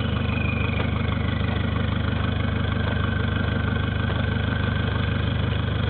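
Peugeot 206 1.4 HDi turbodiesel idling steadily through a WM Sport aftermarket sport silencer with the catalytic converter removed, an even rapid exhaust pulse. A faint whine falls in pitch over the first couple of seconds.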